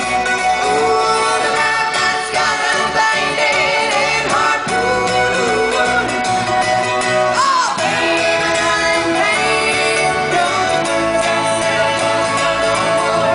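Amplified live band music: acoustic guitars and other strings playing, with women's voices singing.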